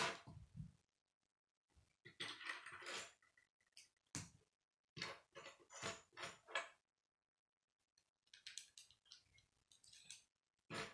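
Plastic K'nex pieces clicking and clattering as they are picked out and handled, in several short bursts with pauses between; near the end a connector is being fitted onto a rod.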